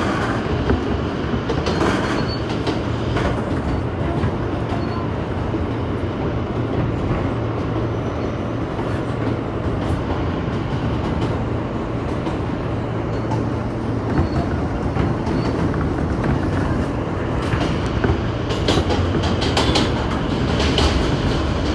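New York City subway train running between stations, heard from inside the car: a steady rumble of wheels on the rails with sharp clicks over the rail joints, which come thick and fast near the end.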